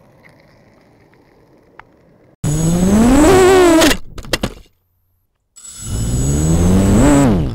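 Walkera 250 racing quadcopter's motors spinning up twice, a loud whine that climbs in pitch through each burst of about a second and a half. The first cuts off abruptly; the second rises and then falls away near the end.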